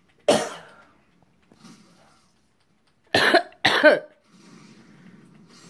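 A person coughing: one sharp cough just after the start, then two more in quick succession about three seconds in.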